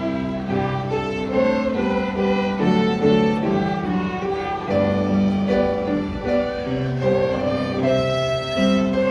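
Elementary-school after-school violin class playing a melody together, bowed notes changing every half second or so, over a lower accompaniment.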